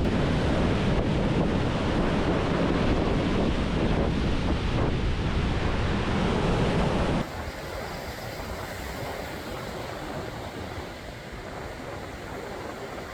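Strong wind buffeting the microphone over waves breaking on a rough lakeshore. About seven seconds in it cuts off suddenly to a quieter, steady background.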